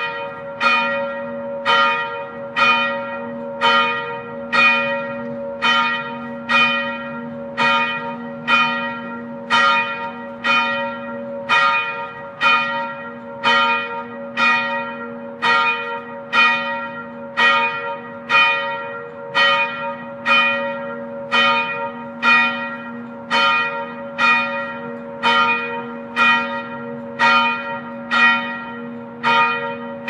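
A church tower bell tolling in an even rhythm, struck about once a second, each stroke ringing on under the next.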